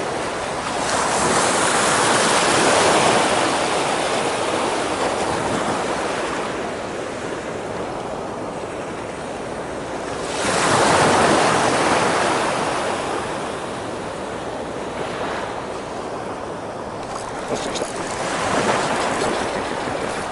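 Surf washing in and breaking, a steady rush that swells three times, with some wind on the microphone.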